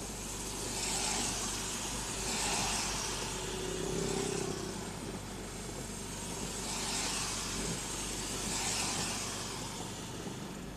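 Windscreen wipers swishing repeatedly across a rain-wet windscreen, heard inside the cab over steady rain noise and the low hum of the idling engine.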